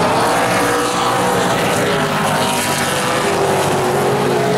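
A pack of Late Model stock cars racing, many engines running together as a loud, steady blend of overlapping engine notes.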